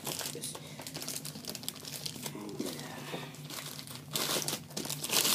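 White plastic mailing bag being pulled apart and crinkled by hand to get at a boxed headset, with louder rustling bursts near the end.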